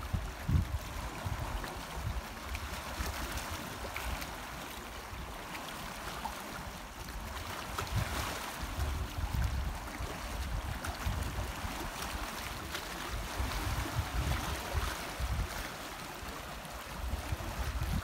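Gentle sea water lapping and washing over shallow shoreline rocks, a steady wash with small splashes, while wind buffets the microphone in irregular low rumbles.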